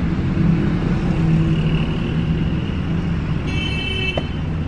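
Steady low rumble of a car engine idling and street traffic, heard from inside the car's cabin, with a short high whine about three and a half seconds in.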